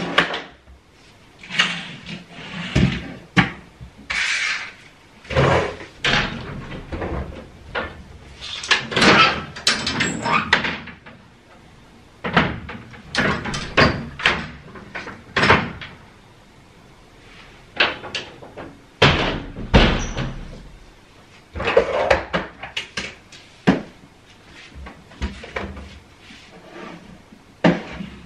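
Irregular knocks, clatters and rustling as toys and small objects are handled and set down on a wooden chest of drawers, with the window and its curtain being worked.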